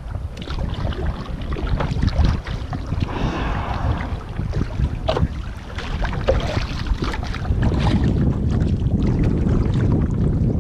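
Wind buffeting the microphone as a low, steady rumble, with water splashing and slapping against a kayak's hull on choppy sea.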